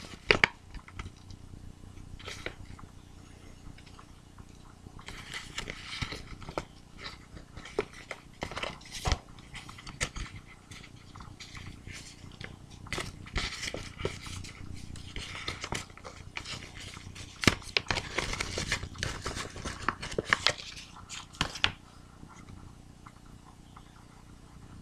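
White mailing envelope being handled and opened by hand: spells of crinkling and rustling packaging, with scattered sharp clicks and taps, quieter near the end.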